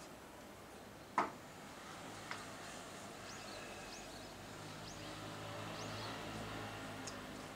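Quiet outdoor ambience with small birds chirping: a handful of short, high, falling chirps. A sharp tap about a second in is the loudest sound, and a faint low hum comes up in the second half.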